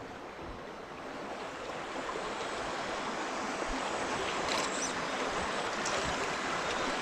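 Shallow creek water rushing and babbling over rocks right by the microphone, a steady wash that grows slowly louder.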